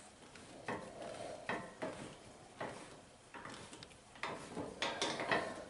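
Irregular metal clinks and knocks, about nine in all, as a home-built steel front spindle and its tack-welded steering arm and tie rod are swung by hand, the steel parts knocking together at the joints.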